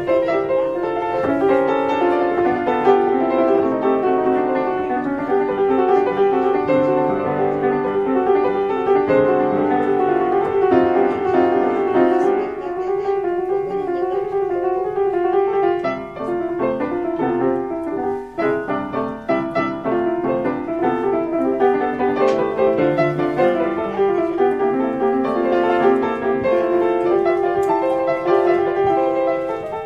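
An 1872 Ritmüller upright piano being played: a continuous passage of melody over chords, with a couple of brief softenings in the middle.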